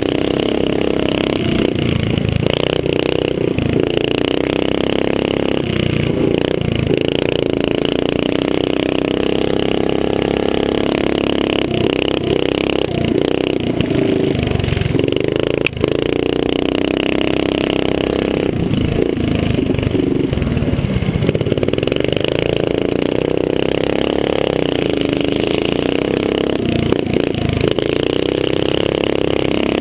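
Small dirt bike engine under race throttle, heard close from the rider's helmet, its pitch rising and falling again and again as the rider opens and closes the throttle, with wind rumble on the microphone. One sharp knock about halfway through.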